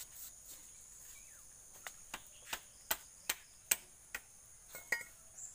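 A knife blade knocking against a fresh coconut, a run of about nine sharp knocks some two to three a second, starting about two seconds in and stopping near the end. Crickets chirp steadily and high-pitched behind.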